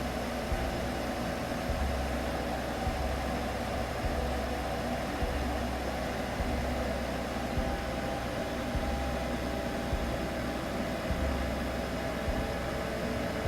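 Steady white-noise hiss for baby sleep, with a deep low pulse about every second and a faint held humming tone underneath.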